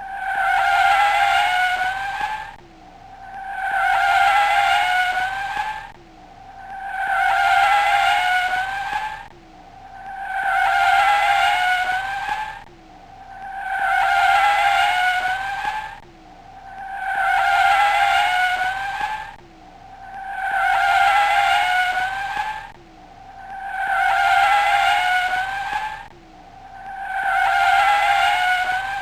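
Car tyres squealing in a wavering screech of about two and a half seconds, repeated nine times at an even spacing of about three seconds, like a looped sound effect.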